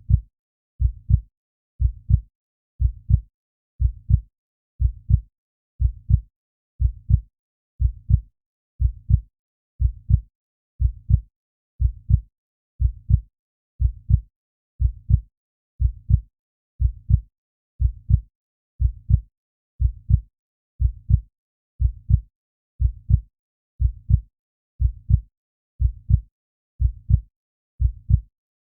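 Slow, steady heartbeat: a low double thump (lub-dub) about once a second, with silence between beats.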